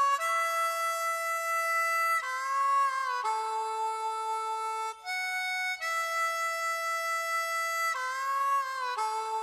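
A solo harmonica in the background music, playing a slow melody of long held notes, some of them bent.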